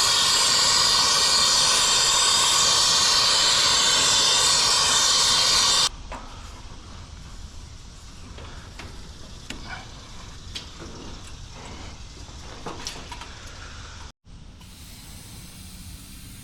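Brazing torch flame hissing steadily and loudly while a refrigerant line joint is heated, cutting off suddenly about six seconds in; after that only light clicks and knocks of work on the copper lines.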